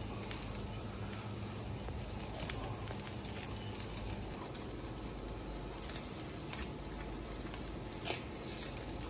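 Roasted leg of lamb sizzling faintly on a grill rack: an even hiss with a few soft pops, over a low steady hum.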